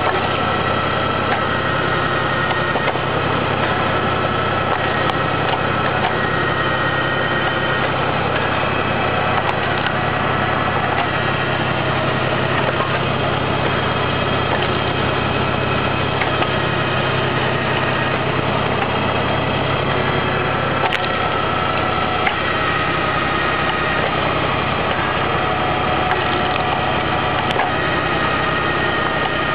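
Motor of a Böschert vertical log splitter running steadily with an even hum while logs are split, with a few sharp cracks of wood giving way under the wedge.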